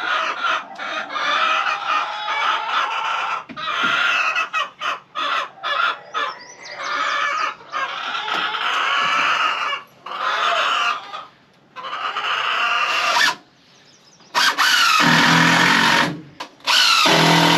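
Chickens clucking and calling, then a cordless drill driving screws into the wooden frame in two long, steady runs near the end.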